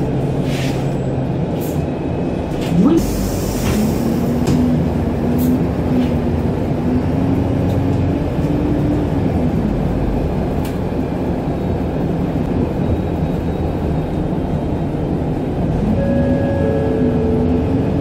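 Alexander Dennis Enviro200 MMC single-deck bus heard from inside the cabin while driving: steady engine and road rumble. About three seconds in there is a short hiss of air, then a whine from the drivetrain that rises in pitch and wavers for several seconds. A similar whine comes back near the end.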